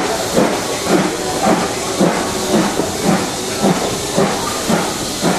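Steam train running, heard from on board: a steady hiss with a regular beat about twice a second.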